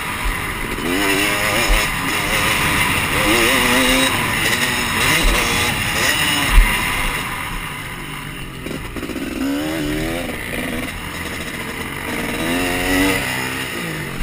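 Dirt bike engine being ridden hard, its pitch climbing and falling again and again as the rider opens and closes the throttle and shifts gears. A single sharp knock about six and a half seconds in is the loudest moment.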